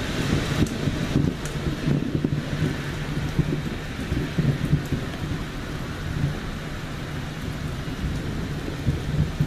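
Thunder rumbling low and long over steady rain. It is loudest at first, eases off through the middle and swells again near the end.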